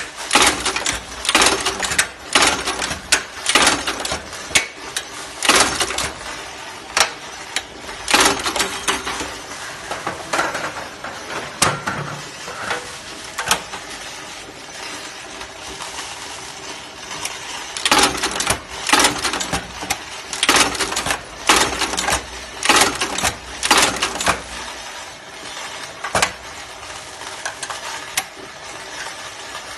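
Riveting press setting rivets through a folding ladder's metal hinge plates, heard as repeated sharp metallic knocks and clinks in clusters. There is a sparser stretch in the middle and again near the end.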